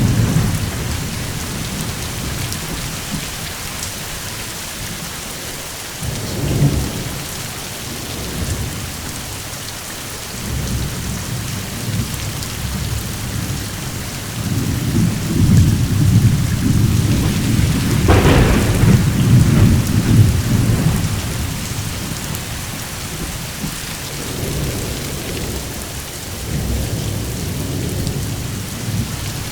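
Steady heavy rain with thunder rumbling through it. A long roll of thunder builds in the middle, with a sharper crack near its peak, and lighter rumbles come before and after.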